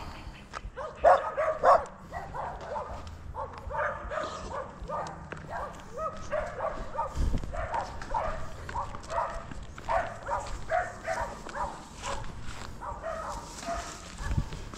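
Dogs barking in a long, unbroken string of short barks, loudest about a second in.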